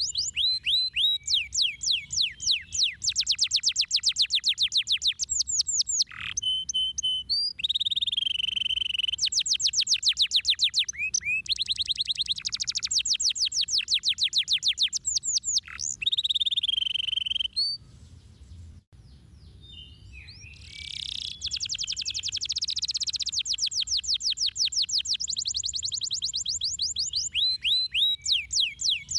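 Domestic canary singing: long runs of fast trills made of rapidly repeated sweeping notes, broken now and then by short steady whistled notes. The song pauses for about three seconds a little past the middle, then the trills resume.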